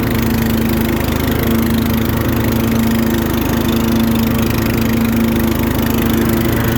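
A 14.5 hp Briggs & Stratton single-cylinder overhead-valve engine on a riding lawn mower, running steadily with the mower deck engaged.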